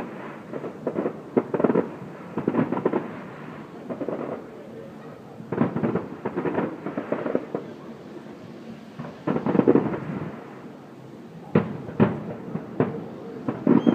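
Distant fireworks shells bursting over the water in clusters of rapid bangs, with quieter gaps of a second or two between clusters and sharper cracks near the end.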